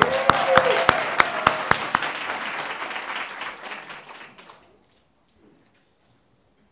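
Audience applauding, with a few sharp single claps standing out over the steady clapping; the applause dies away about four and a half seconds in.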